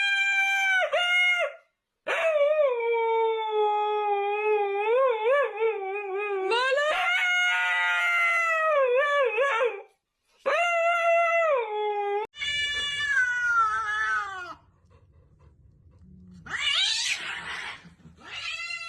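Cats yowling: a string of long, drawn-out, wavering wails, some lasting several seconds, separated by short pauses.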